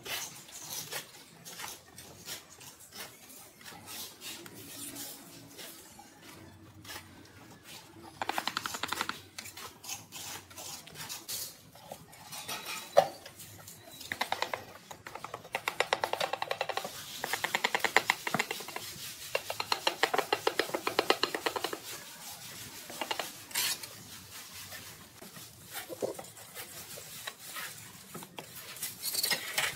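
Steel mason's trowel scraping and tapping along the top edge of ceramic wall tiles and the mortar behind them, in bursts of rapid strokes, with one sharp knock about thirteen seconds in.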